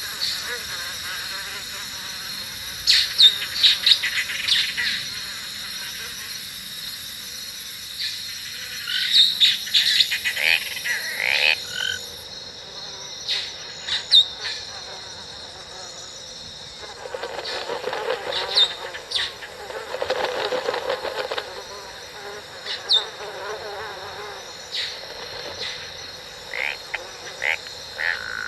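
Theme-park jungle ambience effect: a steady high insect buzz with clusters of short chirping and clicking creature calls every few seconds. A lower, denser chorus of calls joins for a few seconds past the middle.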